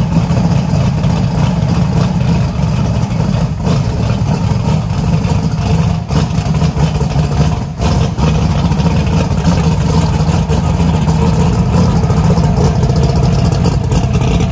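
The Nova race car's engine running loud and steady, a dense rumble that cuts in abruptly and holds for the whole stretch.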